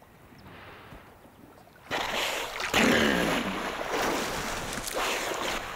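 Water rushing and splashing. The sound starts suddenly about two seconds in after a quiet stretch and continues loud to the end.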